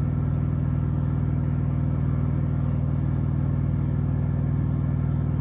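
Semi truck's diesel engine idling, a steady low rumble heard inside the cab.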